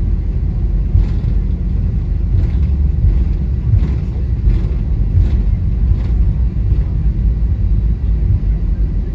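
Cabin rumble of an Airbus A320 rolling along the ground, its engines running at low thrust, heard from a window seat over the wing. Faint soft knocks come about every three-quarters of a second.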